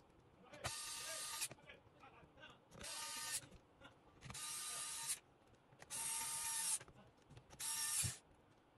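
Electric screwdriver running in five short bursts of under a second each, driving in the screws that hold down a laptop's CPU fan and heatsink.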